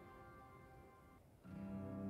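Background music: a quiet guitar chord fades away, then a new strummed chord comes in about one and a half seconds in.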